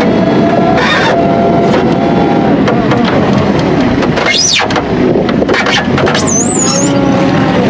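Tractor running steadily with a rear-discharge muck spreader working, a dense continuous noise with wavering tones, and a few high squeals that rise and fall, one around the middle and more near the end.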